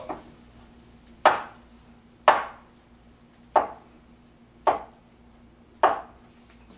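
A large kitchen knife chopping through food onto a wooden cutting board: five sharp, separate chops about a second apart.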